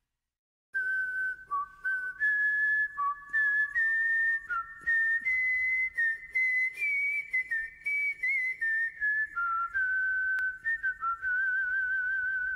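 A lone whistled melody, one clear note at a time stepping up and down, with a wavering vibrato on the last held note: the intro to a power metal track. It starts just under a second in.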